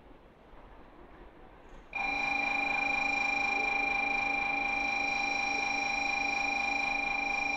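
Station platform electronic warning buzzer. It comes on suddenly about two seconds in and holds one unchanging, multi-toned note.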